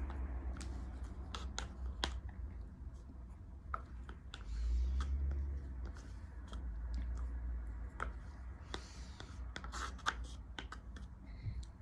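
Wooden spoon scraping and clicking against a plastic cup of chocolate mousse, in scattered short strokes with a low rumble underneath.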